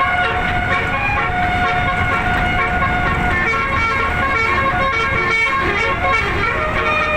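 Basuri telolet bus horn, a 36-note musical air horn, playing a tune without a break: a run of held and stepping notes, with a brief sliding pitch near the end, over a low rumble.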